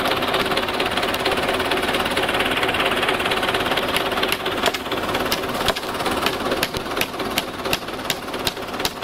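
Tractor engine running steadily close by; from about halfway on, a run of sharp hammer blows, two or three a second, as nails are driven into the wooden swing frame.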